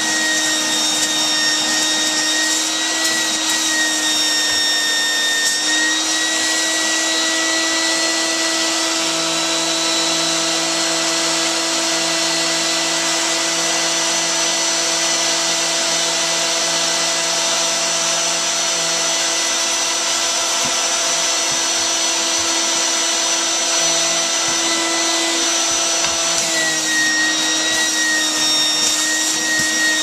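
Small shop vacuum running steadily with a high whine, its hose nozzle sucking dust out of a desktop computer's CPU cooling fan and heatsink. Its pitch shifts slightly about six seconds in and shifts back near the end.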